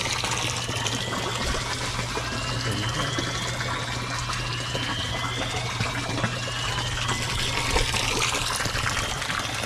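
Water gushing steadily, with a low steady hum underneath and a faint rising whine high up that repeats every couple of seconds.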